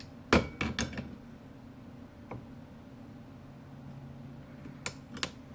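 A handful of sharp metallic clicks and knocks as a chuck key is picked up and fitted to a drill chuck to loosen it, the loudest about a third of a second in and two more near the end, over a low steady hum.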